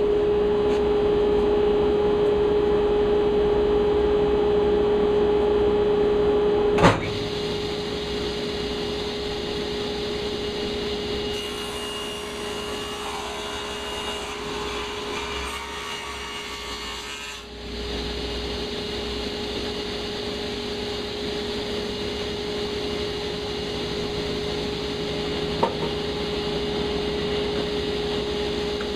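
Table saw running at a steady whine while crosscutting plywood panels to length. There is a sharp knock about seven seconds in, a rougher cutting stretch around the middle, and a small click near the end.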